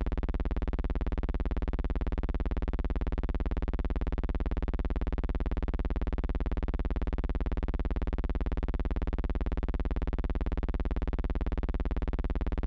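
A steady, unchanging low buzzing hum with a harsh, buzzy edge.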